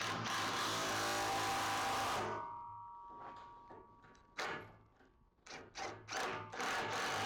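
Hobart Handler 140 MIG welder laying short beads: two bursts of welding crackle and hiss, the first about two seconds long at the start and the second beginning near the end, with a few sharp clicks and knocks between.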